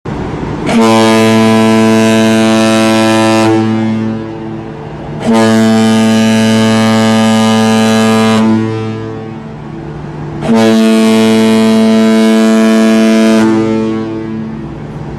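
Ship's horn sounding three long blasts of about three seconds each: one steady, low, pitched tone, dying away between blasts.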